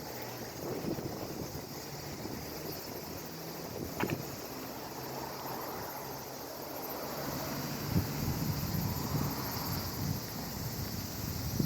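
Strong wind gusting across the microphone, with a faint low steady hum underneath and a single sharp click about four seconds in.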